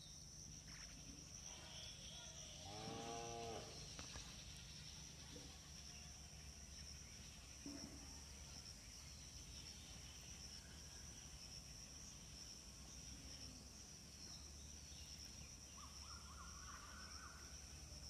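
A cow moos once, about three seconds in, over a faint, steady, high-pitched drone of insects.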